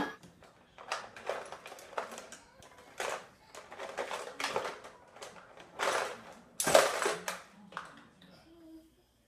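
Irregular plastic clacks and knocks from a baby handling a ride-on toy car, about a dozen spread over several seconds, the loudest cluster about seven seconds in.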